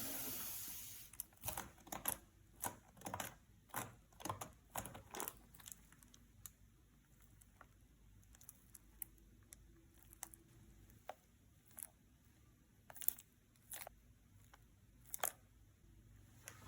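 Packaging of a Yu-Gi-Oh! card box being handled and opened, making a run of sharp crinkles, taps and clicks. They come thick and fast for the first few seconds, then thin out to single clicks.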